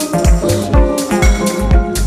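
Electronic dance music with a steady kick-drum beat under synthesizer lines.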